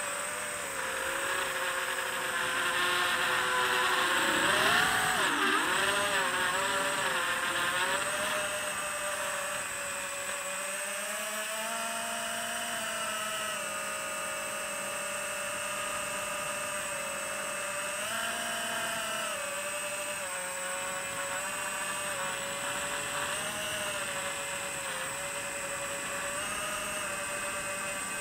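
FPV quadcopter's brushless motors and propellers whining, the pitch rising and falling with the throttle. For the first several seconds it is louder and swings more in pitch, then it settles into a steadier, lower whine. It is heard through the drone's onboard DJI HD camera microphone.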